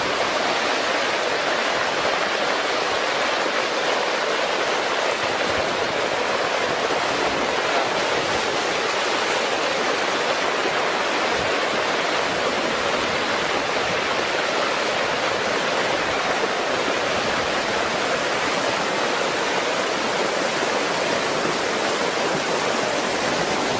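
Floodwater rushing past in a steady, unbroken torrent.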